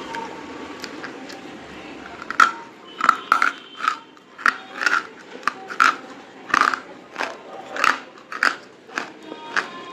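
Crunchy white chalk-like items being bitten, a sharp crunch roughly twice a second, starting about two seconds in and continuing in a steady series.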